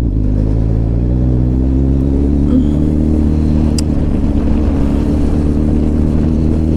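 Kawasaki ZX-10R's inline-four engine running under way, its pitch rising gently over the first few seconds and then holding steady.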